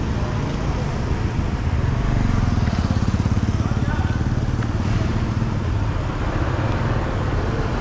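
City street traffic dominated by motorbike engines, with one motorbike passing close about two seconds in, its engine pulsing rapidly before it fades back into the traffic.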